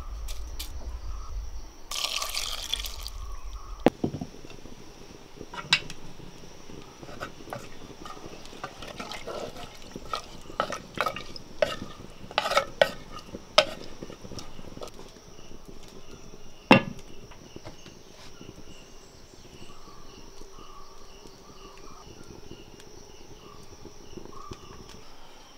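Liquid poured briefly into a clay cooking pot, then a spoon stirring the wet papaya curry mixture, with scattered clicks and knocks against the clay pot and one sharper knock about 17 seconds in.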